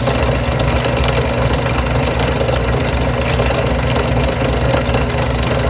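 Small benchtop drill press motor running steadily while a 1/8" diamond glass bit grinds slowly through two layers of fused glass under water.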